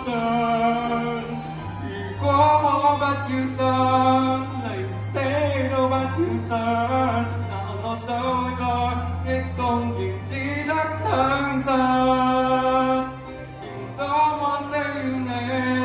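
A male singer singing a Cantonese pop song into a microphone, through the hall's speakers, over steady low accompaniment notes. His voice holds long notes, with a brief dip in loudness a little past the middle.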